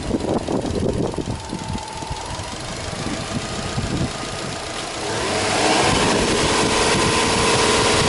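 Subaru Legacy 2.0GT's EJ20 turbocharged flat-four boxer engine running, heard from the open engine bay. It idles with an uneven, lumpy beat, then about five seconds in it is raised to a higher, steady speed and grows louder.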